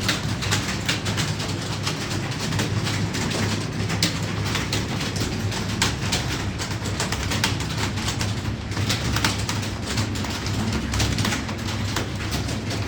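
Several computer keyboards clattering in a continuous, irregular stream of key clicks as people touch-type, over a steady low hum.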